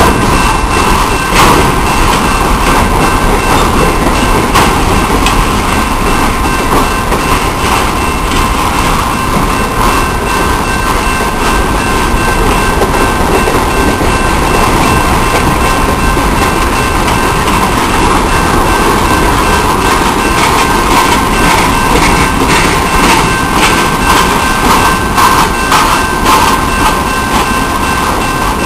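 Freight train rolling steadily along, its wheels clicking over rail joints under a constant high-pitched squeal from the wheels on the rails.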